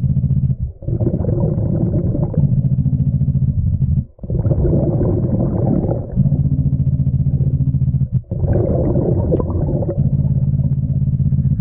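A diver breathing through a scuba regulator underwater: a steady humming inhale alternating with a rumbling, bubbling exhale, about one breath every four seconds with a short pause between breaths.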